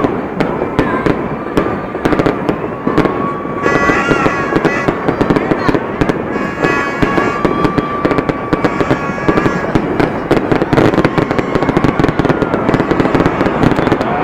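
Fireworks display going off in a rapid, unbroken string of pops and crackles, with a high steady whistle heard at times.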